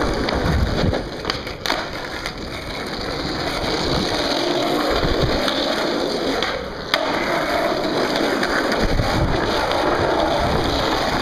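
Skateboard wheels rolling over concrete, a continuous rough rumble, with a sharp clack about seven seconds in.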